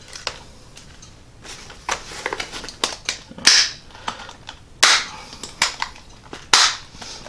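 Small plastic storage boxes being handled and latched shut: a string of sharp plastic clicks and rattles, the loudest snaps about three and a half, five and six and a half seconds in.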